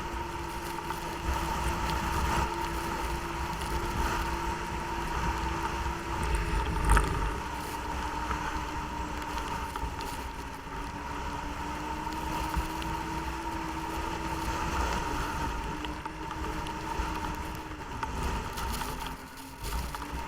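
Snowmobile engine running at a steady cruising pace, its drone holding one pitch that sags slightly a few times, with a single thump about seven seconds in.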